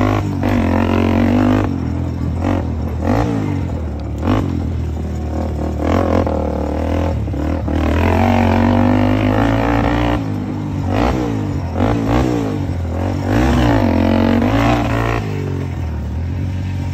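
Honda TRX400EX ATV's single-cylinder four-stroke engine under way, revving up and easing off again and again, its pitch rising and falling with the throttle.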